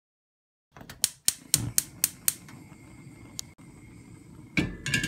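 Gas hob burner's igniter clicking about four times a second, six clicks in all, as the burner lights and settles into a steady hiss of flame. Near the end a metal pot clanks down onto the grate.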